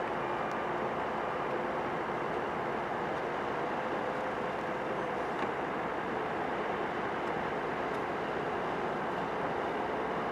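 Heavy diesel engines of dump trucks and a bulldozer running steadily while snow is dumped.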